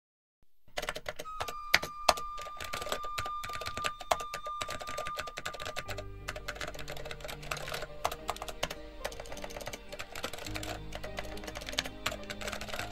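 Rapid, continuous typing key clicks, timed to text being typed out on screen. About halfway through, background music with a low bass line comes in under the clicks.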